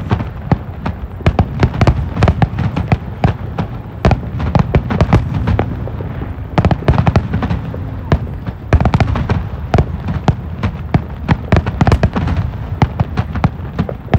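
Aerial fireworks bursting in quick succession: a dense, unbroken string of bangs and crackling pops, several a second.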